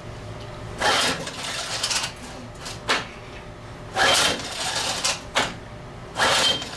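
Recoil starter of a 1980 Johnson 15 hp two-cylinder two-stroke outboard being pulled about three times, each pull a rush of rope and the engine spinning over, with no firing. The engine is not catching because its plugged carburetor is passing no fuel.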